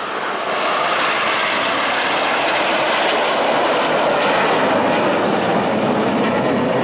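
Formation of nine BAE Hawk T1 jet trainers passing overhead: a loud, steady rushing jet engine noise that swells in the first second and then holds.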